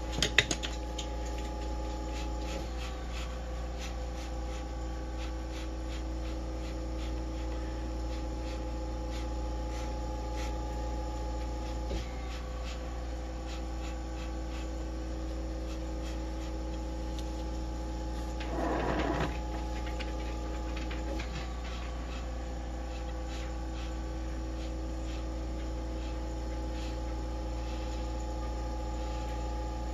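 Steady electrical hum with several steady tones held underneath, and a short buzzy sound about two thirds of the way through.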